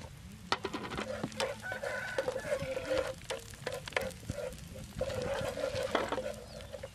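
Chickens clucking and calling, with a wooden spatula tapping and scraping in a frying pan.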